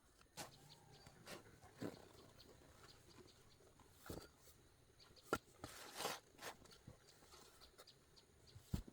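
A few faint, scattered clicks and knocks, with a brief rustle about six seconds in.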